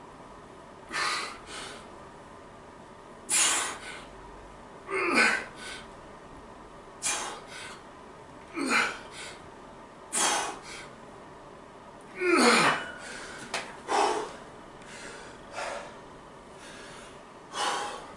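A man's hard, forceful exhalations, about ten of them spaced every one and a half to two seconds, some ending in a falling grunt: the breathing of effort while straining through banded overhead press reps.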